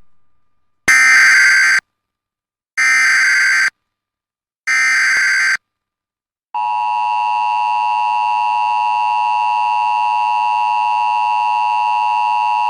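Emergency Alert System broadcast alert: three roughly one-second bursts of the digital SAME header data, a second apart, then the steady, loud EAS attention tone starting about six and a half seconds in, announcing a flash flood warning.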